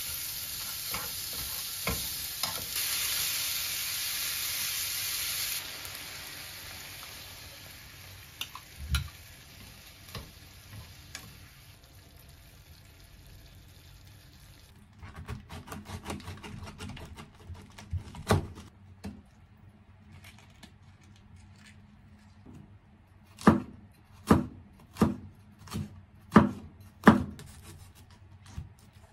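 Sliced onions sizzling in a frying pan while a spatula stirs them, with light clicks; the sizzle eases after a few seconds and stops about halfway through. Near the end a chef's knife chops a red cabbage on a wooden cutting board, with about seven sharp, evenly spaced strokes.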